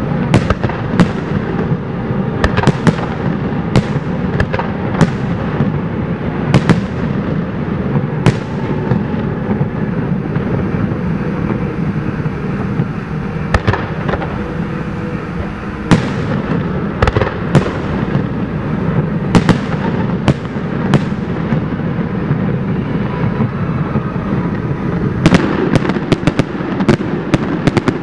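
Aerial fireworks shells bursting one after another, each a sharp boom with an echoing tail, over a continuous low rumble. The bursts thin out partway through, then come as a rapid volley near the end.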